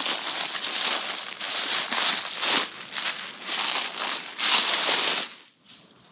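Dry crinkling, crunching rustle in repeated surges of about half a second to a second, stopping abruptly near the end.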